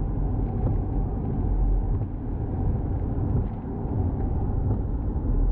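Waterfall pouring: a steady rushing of falling water with a deep rumble.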